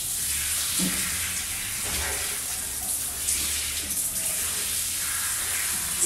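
Shower running: a steady spray of falling water.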